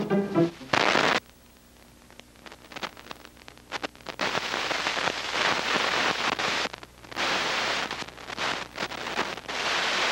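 A short loud burst of noise about a second in, then faint scattered crackles, then a steady rushing hiss from about four seconds in that drops out briefly twice.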